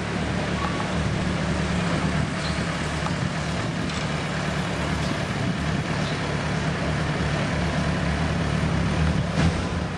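A motor vehicle engine idling steadily, a constant low hum over general street noise.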